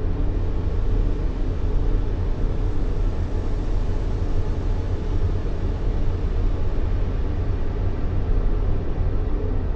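Steady sleep-aid white noise, weighted heavily toward the bass: an even, deep rumbling hiss with little high-end, unchanging throughout.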